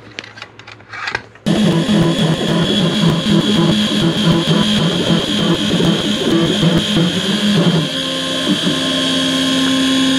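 Small desktop CNC mill engraving an aluminium plate with a fine engraving bit. It starts abruptly about a second and a half in: a high steady spindle whine over the wavering hum of the stepper motors as the axes move, with the hum settling into a steadier drone near the end. A few light clicks of an SD card going into a card reader come before it.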